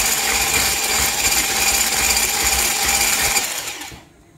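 Handheld electric whisk running steadily as it beats cake batter in a plastic bowl, with a motor whine, then winding down and stopping near the end, followed by a single click.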